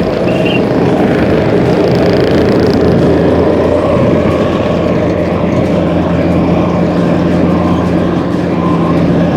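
Truck engine running steadily with a low hum, cutting off abruptly near the end.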